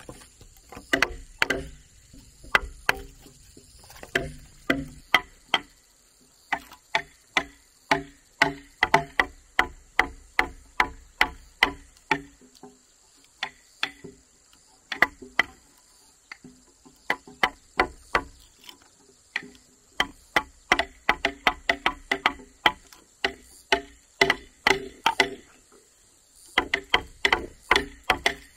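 Hammer blows on a chisel cutting mortise holes into a wooden house pillar, two or three sharp strikes a second, with short breaks between runs.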